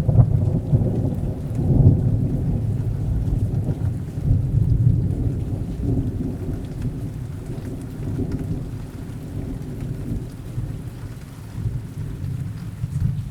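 Steady rain with a long rolling rumble of thunder, loudest in the first few seconds and slowly fading away.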